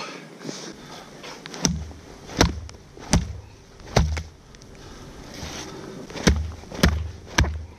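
About seven sharp thumps and slaps, unevenly spaced, from a freshly landed silver salmon being handled and knocked against wet mud, over a low rumble.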